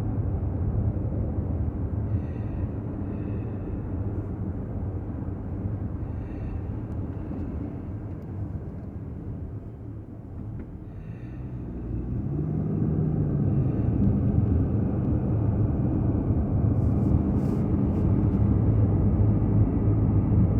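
Car driving, heard from inside the cabin: a steady low engine and road rumble that eases off about halfway through, then picks up again and grows louder as the car speeds up.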